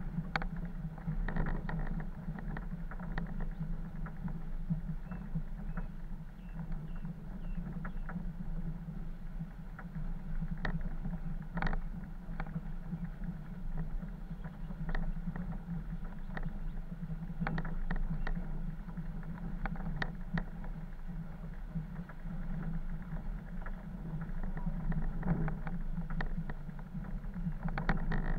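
Off-road vehicle driving slowly along a rutted dirt track, heard from a camera mounted on the vehicle: a steady low drone from the engine and running gear, with irregular knocks and rattles as it jolts over the ruts.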